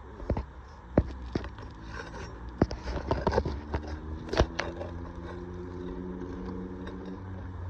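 Asphalt roof shingles being pried and lifted to reach their nails: scattered snaps, scrapes and crackles as the sealed layers break loose, most of them in the first five seconds. A steady low engine hum runs underneath.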